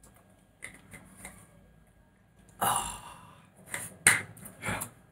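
A man drinking water from a plastic bottle: faint swallowing clicks, then a loud breath out about two and a half seconds in, followed by a few short rustling knocks.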